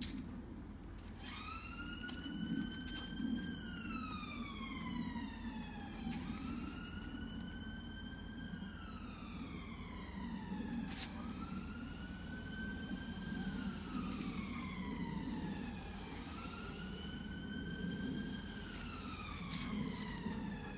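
Emergency vehicle siren wailing, its pitch rising slowly and then falling in cycles of about five seconds, repeated four times, with a few sharp clicks over it.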